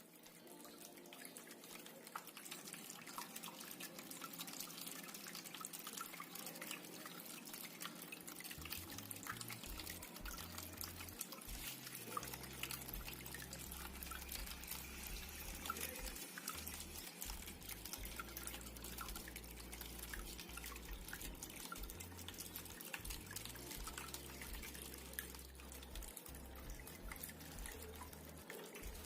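Water from a small cement tabletop waterfall fountain, trickling and dripping steadily with many small drip ticks.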